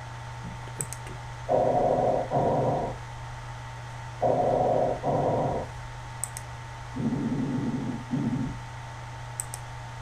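Recorded normal lung sounds played back by an auscultation simulator: three short breath cycles, each an in-breath then an out-breath, the last cycle lower-pitched. Mouse clicks come between them as the chest regions are selected.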